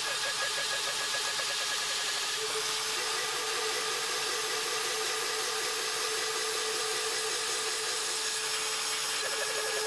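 Mafell FM 1000 PV-WS router running as the spindle of a DIY CNC mill, its end mill cutting 5083 aluminium plate. There is a steady whine over a high hiss, with a fluttering chatter in the first couple of seconds and again near the end.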